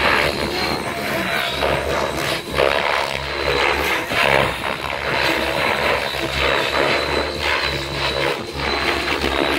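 Radio-controlled helicopter flying aerobatics: a steady high whine from its motor and rotor over a loud rushing noise, with an uneven low rumble underneath.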